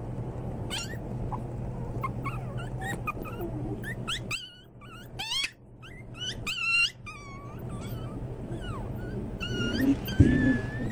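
A litter of American Eskimo puppies whining and yipping: many short, high, sliding squeaks that overlap, thickest in the middle. A single dull thump near the end is the loudest sound.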